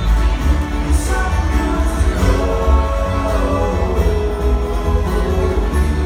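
Live acoustic band playing: acoustic guitar and upright bass with singing, the bass heavy.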